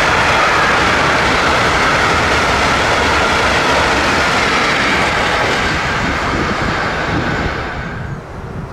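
Freight train of covered hopper wagons rolling past close by at speed, a loud steady rush of wheels on rail. It drops away sharply near the end, leaving wind noise on the microphone.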